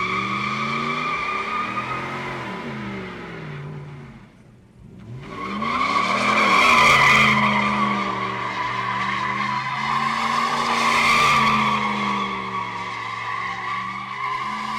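Car tyres squealing in a burnout or donuts under an engine revving up and down. The squeal fades briefly about four seconds in, then comes back louder.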